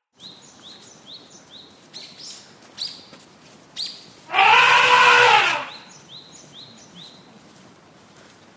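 An elephant trumpets once, loud and a little over a second long, about four seconds in. Around it a bird gives a run of short, quick rising chirps, three or four a second.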